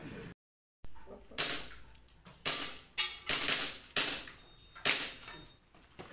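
Airsoft pistol firing about six shots at steel plate targets, sharp cracks unevenly spaced over three and a half seconds, each with a brief high-pitched ring.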